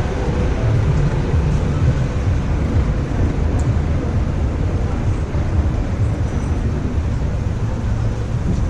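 Loud, steady low rumble of outdoor city background noise, heaviest in the bass, with no single distinct event.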